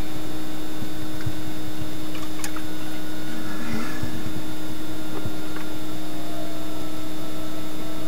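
Steady hiss with a constant low hum, and a few faint clicks.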